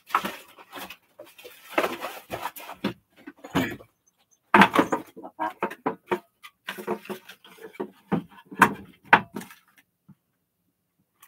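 Pet-care items being handled and moved about on a shelf: irregular clattering, rattling and knocks with a few sharper strikes, stopping about a second before the end.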